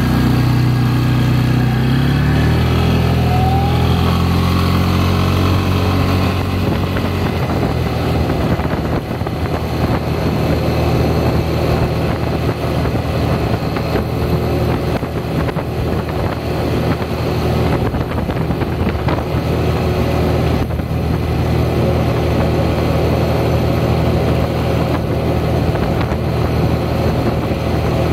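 Small ATV's engine pulling away, its pitch rising over the first two seconds or so, then running steadily at road speed.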